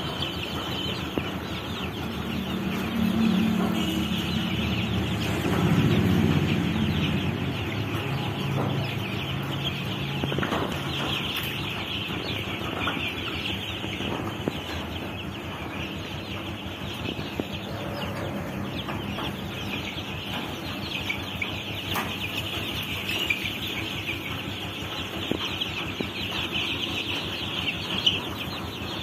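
A large flock of young chicks peeping continuously, a dense high-pitched chorus. A lower-pitched sound swells in the background a few seconds in.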